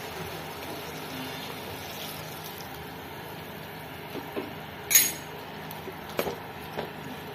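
Faint steady sizzle of vegetables and ground masala cooking in a steel pot, with a sharp metallic clink about five seconds in and a few lighter knocks as a ladle starts stirring against the pot.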